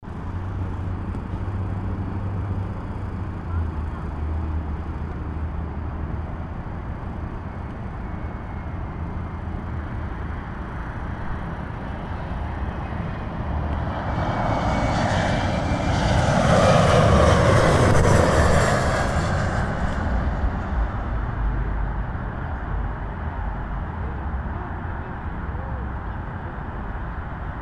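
Embraer ERJ-175 twin-engine jet on landing approach passing low overhead. Its engine noise swells to a peak a little past the middle and then fades, with a falling whine as it goes by. A steady low rumble lies underneath.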